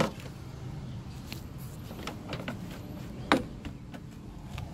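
Plastic clicks and knocks from the windshield cowl panel and its clips being handled: a sharp click at the start, a few lighter ticks, and the loudest click about three seconds in.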